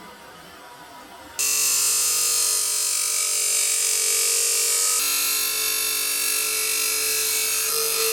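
Electric power tool motor running steadily with a high hiss, cutting in suddenly about a second and a half in.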